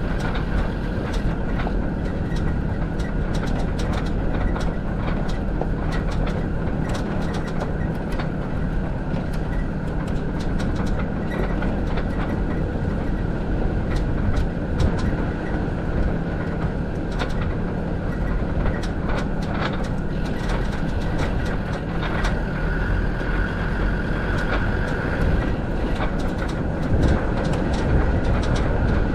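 Land Rover Defender TD5 90's five-cylinder turbodiesel engine running steadily as the truck drives over a stony dirt track, with frequent clattering knocks and rattles as it bumps along.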